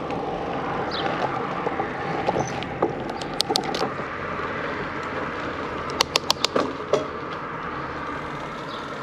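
Bicycle rolling along an asphalt road: a steady rush of tyre and wind noise, with two quick runs of sharp clicks, about three and a half seconds in and about six seconds in.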